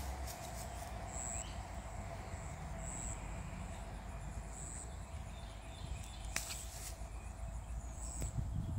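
Outdoor ambience: a short, high chirp repeating about every second and a half over a steady background hiss. Brief rustles come at the start and again about six and a half seconds in.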